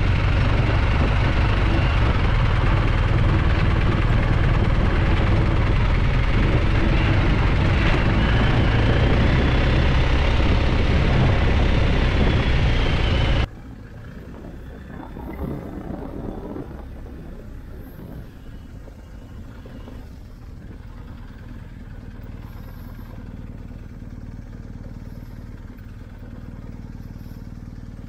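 BMW R 1250 GS Adventure motorcycle on the move, loud and steady. About halfway through it cuts off abruptly to a much quieter stretch of the bike running at low speed.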